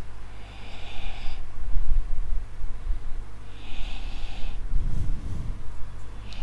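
A man breathing close to a microphone, twice: each time a sniffing inhale through the nose, then a low puff of exhaled air hitting the mic, over a steady low hum.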